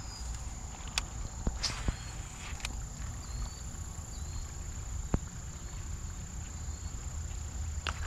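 Summer riverside ambience: a steady high-pitched insect drone, with a few light clicks and faint short chirps over a low rumble.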